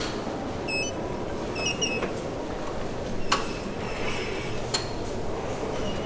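Metro station entrance hall ambience: a steady echoing background hum, a few sharp knocks or footfalls, and two quick pairs of short electronic beeps in the first two seconds.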